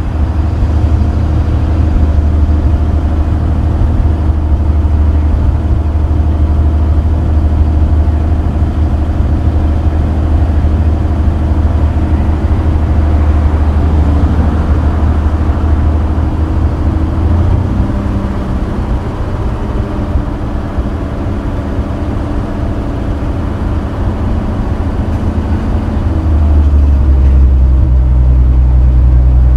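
A 1966 Chevrolet pickup truck driving, heard from its open wood bed: a loud, steady, low engine and road drone. Its pitch shifts about two-thirds of the way through, then it grows louder near the end as the truck speeds up.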